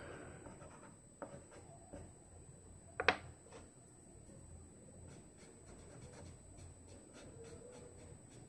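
Fingertips rubbing and blending soft pastel on paper, a faint scratchy rubbing with small scattered ticks. A sharp click about three seconds in is the loudest sound.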